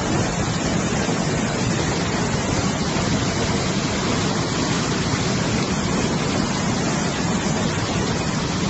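Muddy floodwater pouring down a waterfall and rushing through the river channel, a steady, unbroken rushing noise.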